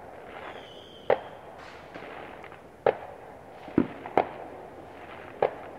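Consumer fireworks going off around the neighbourhood: five sharp bangs spaced irregularly over a few seconds, two of them close together near the middle.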